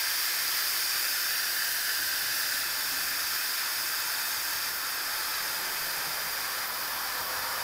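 Instant Pot Lux pressure cooker's pressure release valve venting a jet of steam: a steady hiss that eases slightly as the pressure comes down.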